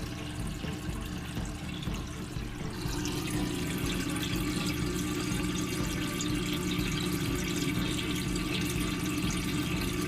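Water running and trickling steadily over a low steady hum; the water sound grows fuller about three seconds in.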